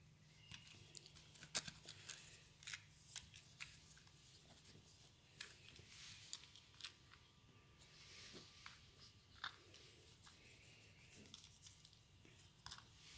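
Faint rustling of bedding with scattered soft clicks and ticks as a tabby cat paws and mouths at a hand and a toy mouse, one sharper click near the start.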